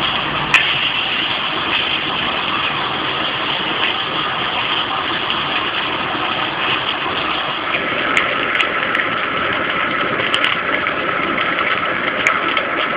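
Homemade copper-coil jet stove burning with a steady hiss under a frying pan of sizzling bacon. A few sharp clicks come through, one near the start and several in the last few seconds.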